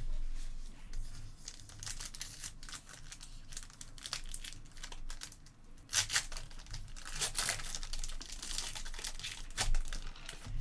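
Trading-card pack wrappers being torn open and crinkled by hand, a run of sharp crackling rustles that is busiest past the middle.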